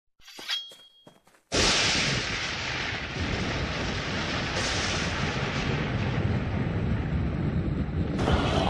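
Cartoon thunderstorm sound effect: a loud, steady rumble starts suddenly about a second and a half in, after a few faint clicks and a brief high chime. A whooshing sweep begins near the end.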